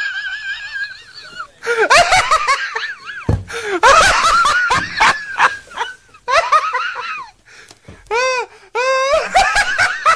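A man in a helpless fit of laughter: high-pitched laughs in bursts, broken by short gaps for breath.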